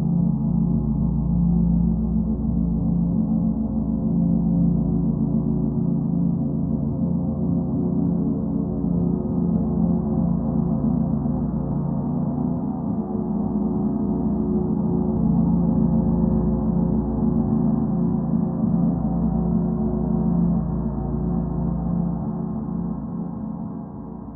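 Dark, ominous ambient drone: a low, sustained hum of many layered steady tones with a metallic, gong-like ring, slowly swelling and ebbing, and fading out near the end.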